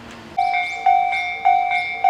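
Railway level-crossing warning bell starting to ring about half a second in: a loud 'kan-kan' ding repeating a little under twice a second. It is the signal that a train is approaching and the crossing is closing.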